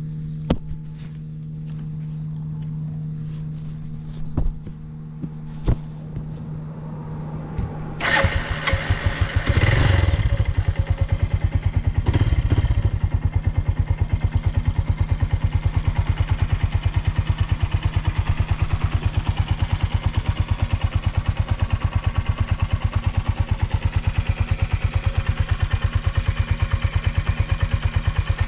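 Suzuki Volty's single-cylinder engine starting about eight seconds in, revved briefly a couple of times, then settling into a steady idle with an even beat. It runs quietly with no abnormal noises, a sign of the low-mileage engine's good condition.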